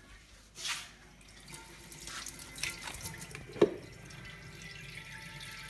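Kitchen tap running into the sink while hands are washed under it, with a sharp knock a little past halfway.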